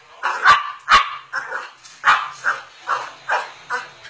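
Cocker spaniel barking in a quick string of short barks, about two or three a second: excited demand barking at something held just out of its reach.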